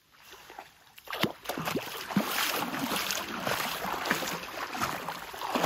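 Shallow river water splashing and sloshing with wading steps, starting about a second in as a close, busy run of splashes.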